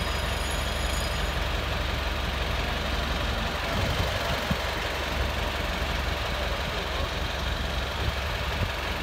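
Vehicle engine idling steadily: a low, even rumble under a constant noise haze.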